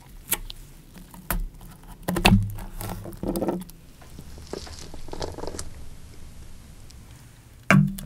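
A lime cut with a knife on a wooden board: a few light taps, a sharp knock about two seconds in, then wet crunching as the blade goes through the rind and flesh. Near the end comes one loud knock as a plastic bottle is set down on a table.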